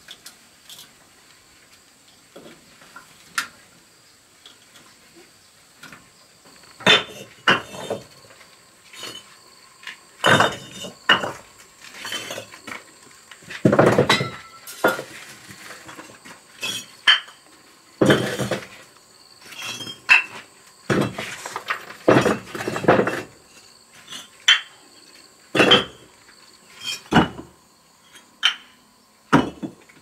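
Hollow clay bricks knocking and clinking against each other as they are handled and set down, in irregular sharp knocks that begin several seconds in. Under them runs a steady high drone of insects.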